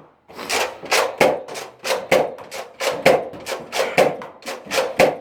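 Nerf Rival foam-ball blaster fired repeatedly, a sharp snap about three times a second in an even rhythm.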